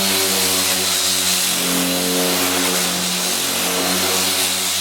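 A motor running steadily at speed, with a high steady whine over a lower hum.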